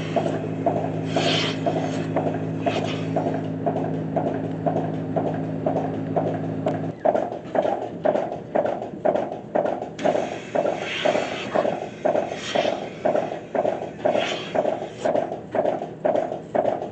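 Pipeline milking machine pulsators working, a steady rapid rhythmic rasping of vacuum pulses. A motor hum from the pipeline's milk pump cuts off about seven seconds in.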